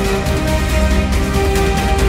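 Background music with held melody notes over a steady low bass.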